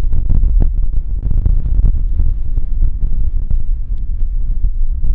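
Wind buffeting the camera microphone: a loud, uneven low rumble that swells and dips.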